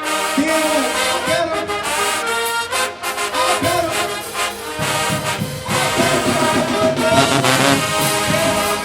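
Marching band brass playing loudly, with the low brass joining in strongly about five seconds in.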